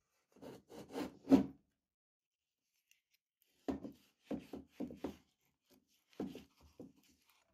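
Fingers scraping and pulling sticky ground toothpaste out of a steel meat grinder's barrel, in three short bursts of rubbing, sticky handling sounds with pauses between them.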